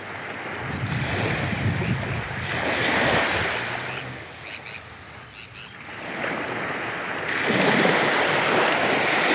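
Small waves breaking and washing up a sandy beach at the water's edge. The surf swells over the first few seconds, eases off in the middle, then swells again as another wave runs in near the end.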